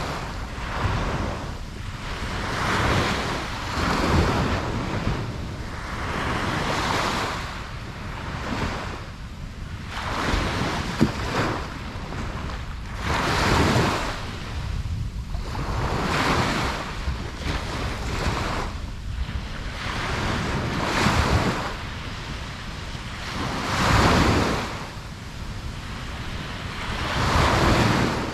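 Ocean waves breaking and washing up on a beach: a steady surf rumble with a swell of spray and wash every two to three seconds.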